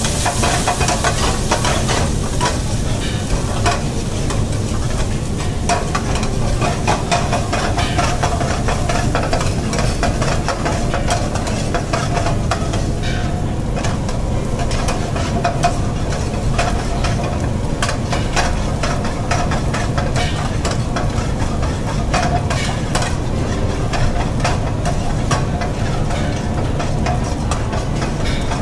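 Sliced onions sizzling as they fry in hot oil in a pan, with the spatula scraping and clicking against the pan as the onions are stirred continuously. A steady low rumble runs underneath.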